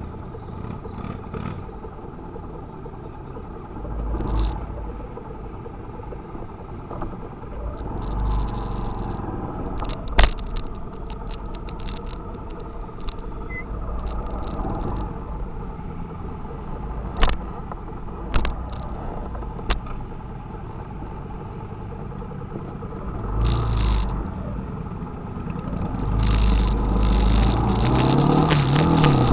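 Motorcycle engines running in a group ride, over a steady low rumble with several louder bursts and a few sharp knocks. Near the end the engine noise swells as the bikes ride off together in traffic.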